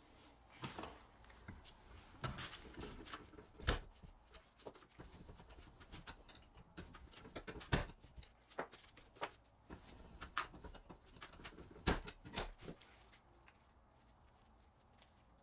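Small metal clicks and knocks from handling Mini Tonka toy wheel-and-axle parts in a bench vise, with a few sharper clanks spread through.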